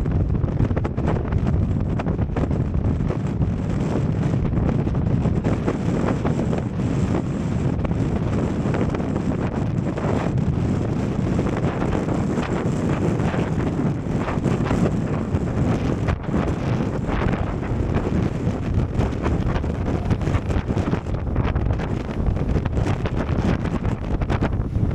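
Strong wind buffeting the microphone: a steady low rumble that flutters and gusts.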